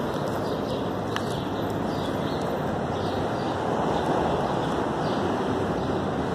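Steady outdoor city background noise, a low rumble with hiss, with a faint click about a second in.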